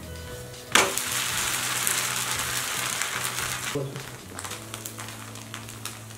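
A set dosa is flipped onto a hot oiled tawa about a second in. It lands sharply and the fresh side sizzles loudly for about three seconds, then settles to a softer sizzle.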